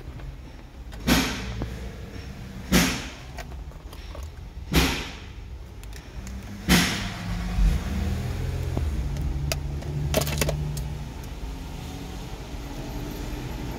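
Four sharp thumps about two seconds apart, then the 2015 Infiniti Q60's 3.7-litre V6 engine running at a steady idle from about seven seconds in.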